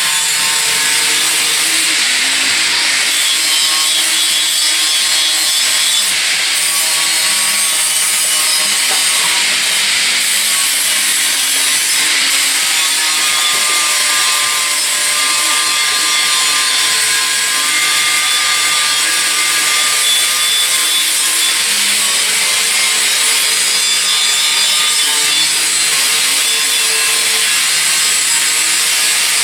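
Handheld power tool grinding metal in a long steady pass, a continuous rasp with a faint whine that shifts in pitch now and then as the load changes.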